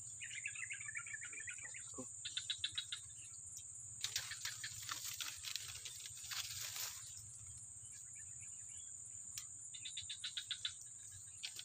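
Steady high-pitched insect drone, with two short rapid chirping trills, one early and one near the end, and a few seconds of rustling in the middle.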